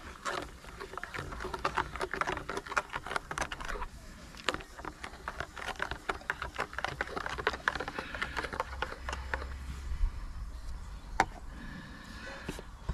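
Dense, irregular clicking and rustling of small objects being handled, in two stretches of a few seconds each, with a low steady hum underneath and a couple of sharper single clicks near the end.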